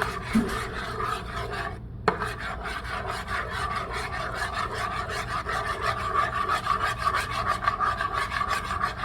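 A utensil stirring a glue and shaving-cream slime mixture in a container, scraping rhythmically at several strokes a second. There is a short pause and a sharp tap about two seconds in.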